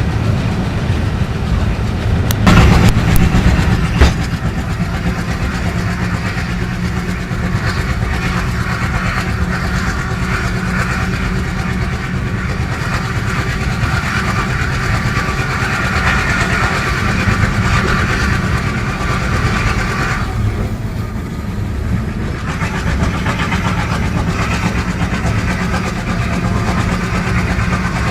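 WDM3A locomotive's ALCO diesel engine running steadily, heard from the cab. Two sharp knocks stand out a few seconds in, and the higher-pitched part of the noise eases off about two-thirds of the way through.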